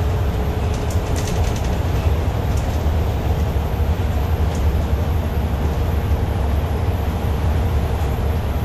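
Steady low rumble of a city transit bus under way, heard from the front of its cabin: engine and road noise, with a few faint clicks and rattles in the first couple of seconds.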